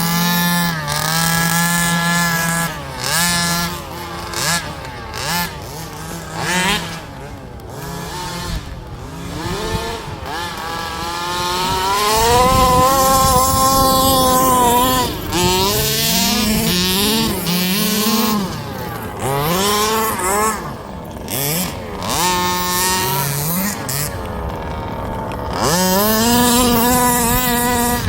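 Small two-stroke engines of 1/5-scale petrol RC buggies revving up and down again and again as they are driven hard, with a long, loud high-revving run about twelve seconds in.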